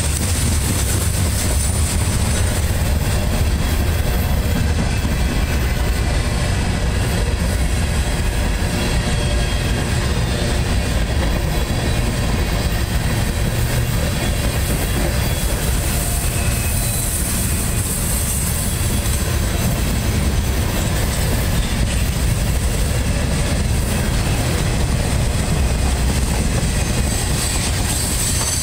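Freight cars of a long train rolling past on a sharp curve: a loud, steady rumble and clatter of wheels on rail, with a faint high squeal from the wheels on the curve.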